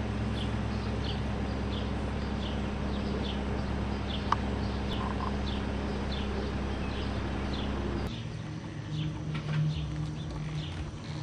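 A bird calling over and over in short falling notes, about two a second, over a steady low outdoor hum that drops away about eight seconds in. A single sharp click sounds about four seconds in.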